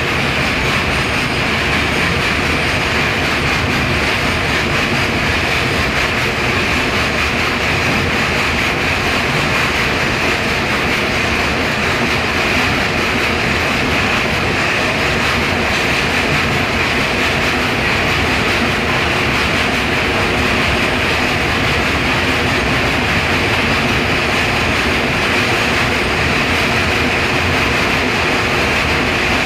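Indian Railways freight train of open-top box wagons rolling steadily past on broad-gauge track: a continuous rumble of wagon wheels on the rails with a steady high hiss over it.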